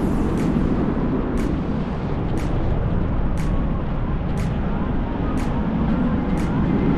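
Steady wind rushing over the microphone during paraglider flight, with a faint sharp tick about once a second.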